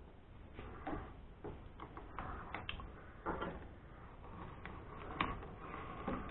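Faint, scattered metal clicks and short scrapes as a mini lathe's carriage and quick-change tool post are moved and set by hand.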